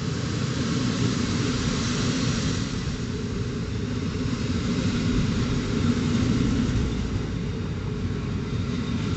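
A train running past, a steady loud rumble of wheels on rail.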